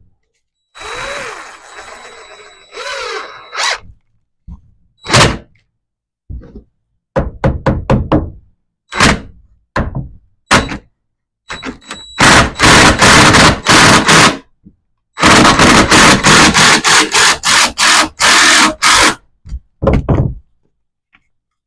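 Deck screws being driven with a power driver into two-by-four truss lumber: a short whir near the start, then separate sharp knocks, then long loud runs of rapid impacts in the second half as the screws are toenailed in.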